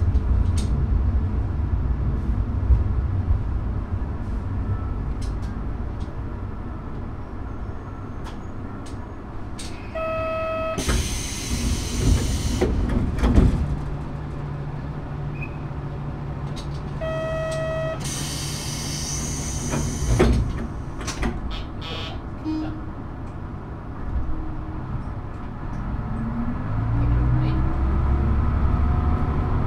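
Diesel railcar stopping at a small station with its engine humming low. Twice, about seven seconds apart, a short beep is followed by a long hiss of air as the doors open and then close. Near the end the engine revs up with a rising drone as the train pulls away.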